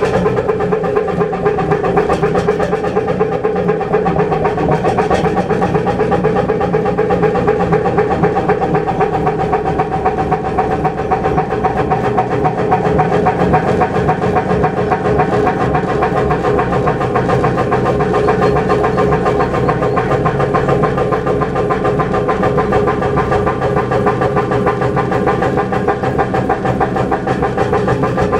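Kromhout 2H3 marine diesel engine running steadily, its exhaust beating out of the boat's stack in a fast, even rhythm.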